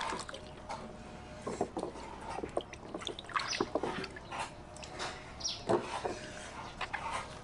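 Water splashing and dripping as green mangoes are rubbed and rinsed by hand in a plastic basin of water, in irregular splashes and drips.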